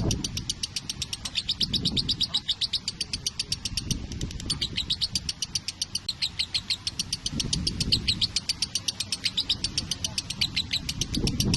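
Lovebird chirping in a rapid, steady run of short high chirps, many a second, with a few patches of low rumbling noise.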